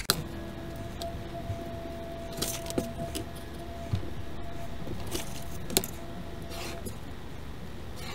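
Ruler and pen being worked over construction paper on a tabletop: scattered light clicks and taps, with a few short scratchy pen strokes as lines are marked out.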